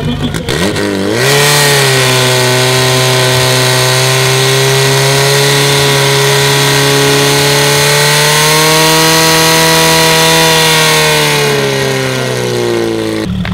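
Portable fire pump's engine revving up to full throttle about a second in and held at high revs while it drives water through the attack hoses, its pitch sagging near the end before it cuts off.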